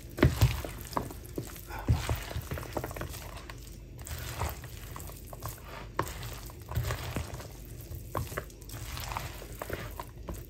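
Spatula stirring a dressed pasta salad in a clear plastic bowl: soft wet squishing and scraping, broken by irregular short knocks, the loudest within the first half-second.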